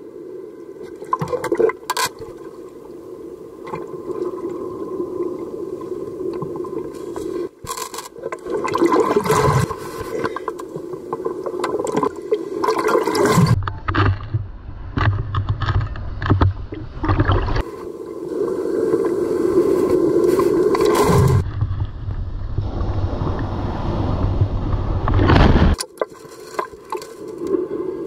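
Ocean surf sloshing and splashing around a water-level camera in heavy shorebreak, with waves breaking close by. Twice the sound turns muffled with a deep rumble for several seconds before the splashing returns.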